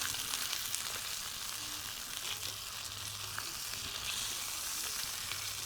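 Rainbow trout sizzling as it cooks, a steady hiss with small crackles, almost done.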